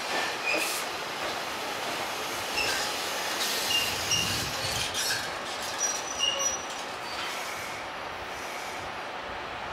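Blue sleeper train's coaches at a station platform: a steady noise with several brief high-pitched squeals and a few clicks, the strongest squeals about four and about six seconds in.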